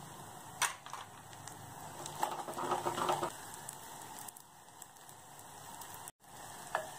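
A metal spoon knocking and scraping against a clay pot while stirring frying shallots, garlic and dried black nightshade berries: one sharp knock about half a second in, then a run of clicks and scrapes around two to three seconds in, over a faint steady hiss.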